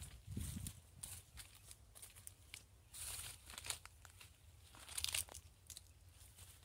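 Rustling and crackling of dry leaves and brush underfoot as someone walks through dense shrubs, in a few irregular bursts, with a soft thud near the start.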